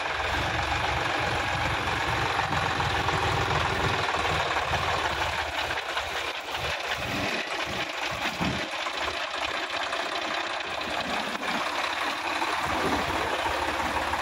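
Sonalika DI-50 RX tractor's diesel engine running steadily while the tractor works through a flooded, muddy paddy field, with its tyres churning water and mud.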